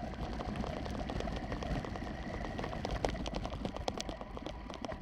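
RC trucks driving over rough ground: a steady rushing noise full of irregular rattling clicks, with a faint steady whine.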